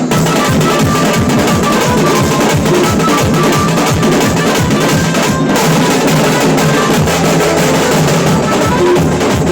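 Tasa drum band playing: rapid stick strokes on tasa kettle drums, rolling fast and continuously over bass drum beats, with a melody line running alongside.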